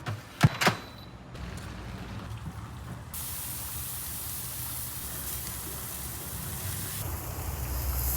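Food sizzling on a hot pan or grill: a couple of short knocks in the first second, then a steady sizzling hiss that grows fuller about three seconds in.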